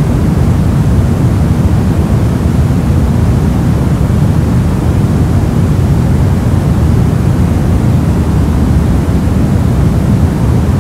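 Steady radio static: a loud, even, deep hiss with most of its weight low down and no tones, clicks or changes.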